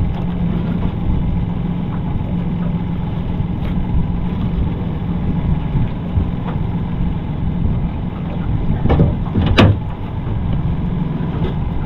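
Boat engine idling steadily, with two sharp knocks about nine seconds in.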